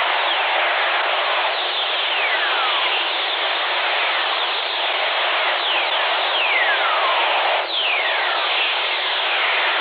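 VLF radio recording of Earth whistlers played as sound: several falling whistling tones, each gliding from high to low over a steady hiss. About three-quarters of the way through comes a sharp click with a strong whistle sweeping down right after it. The whistlers are made by lightning, their signals travelling along Earth's magnetic field lines.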